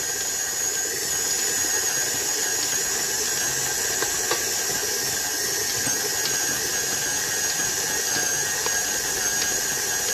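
KitchenAid Artisan stand mixer running steadily, its motor giving a high, even whine as the beater mixes shortbread dough in the steel bowl.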